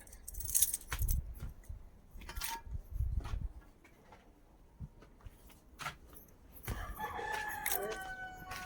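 A rooster crowing once near the end, one long call that falls in pitch as it finishes. Before it, scattered knocks and rattles over a low rumble.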